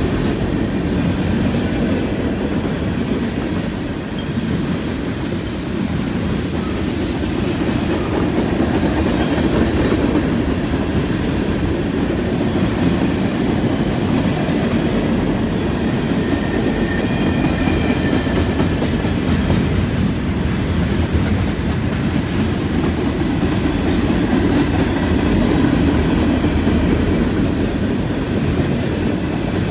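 Freight cars (tank cars and covered hoppers) of a passing train rolling by close up, steel wheels rumbling and clicking steadily over the rails, with a faint wheel squeal in the middle.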